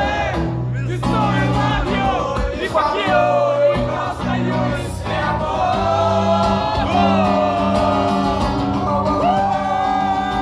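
Live band music with a sung melody over steady bass notes, and a crowd shouting along.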